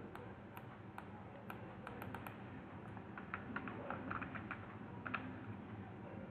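Faint, irregular clicks of computer input, made while paging through a document on screen.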